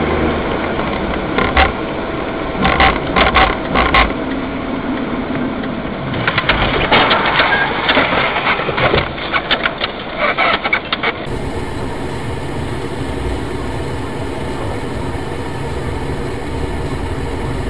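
Car cabin noise from a dashcam while driving: engine and road noise with bursts of sharp clicking and rattling. About eleven seconds in it changes abruptly to a steadier hum of another vehicle interior.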